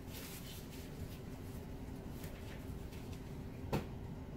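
Quiet room tone with faint handling noises and one short knock near the end, as a scraper is picked up and handled at the canvas.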